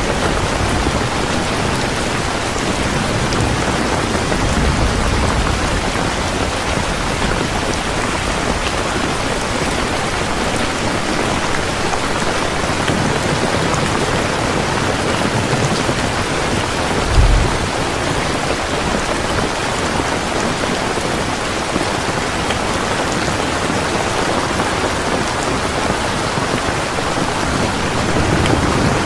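Heavy rain pouring steadily on surfaces in a thunderstorm, with faint low rumbles of thunder and one short low thump about two-thirds of the way through.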